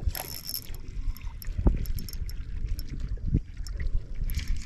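Water sloshing and splashing against the hull of a small skiff, with a low rumble of wind and water throughout. There are hissing splashes at the start and near the end, and a couple of soft knocks in between.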